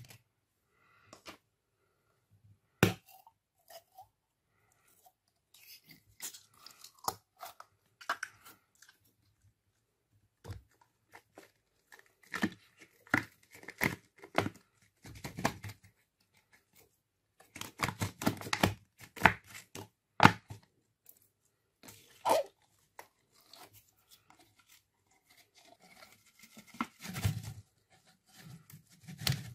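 Clear slime being pressed and squeezed by hand in a glass dish, with sticky crackles and pops coming in irregular clusters.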